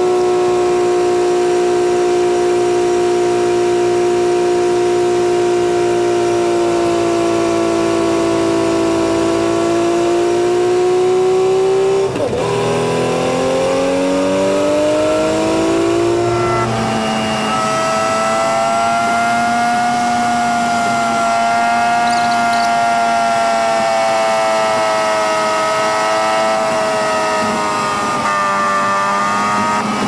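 Mack dump truck's diesel engine running steadily under load. About twelve seconds in its pitch drops at a gear change, then climbs again as the revs come back up, and it settles a few seconds later.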